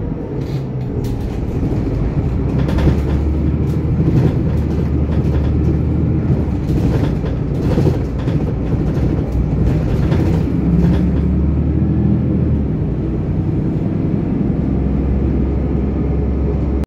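VDL Citea CLF 120 city bus heard from inside the cabin, its diesel engine and drivetrain running under way with a steady low drone. Short clicks and rattles come and go over the first two-thirds, and the engine note shifts a little near the end.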